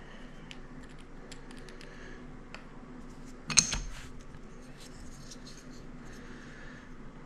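Light clicks and handling noises from close-up hand work, with one sharp, ringing clack about three and a half seconds in.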